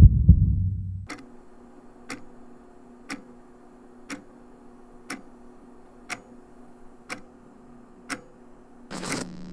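A heavy heartbeat sound effect, one loud lub-dub thump, then a clock ticking steadily about once a second, eight ticks. Near the end a short rushing noise gives way to a low steady hum.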